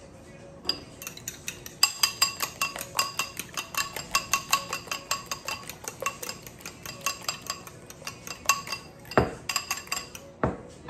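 A metal utensil beating eggs in a bowl: fast, even clinking against the side of the bowl, about five strokes a second, followed near the end by two heavier knocks.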